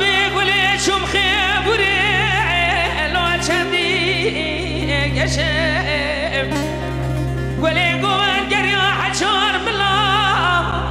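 Background music: a singer's voice with a strong, wavering vibrato in long ornamented phrases over a steady low accompaniment.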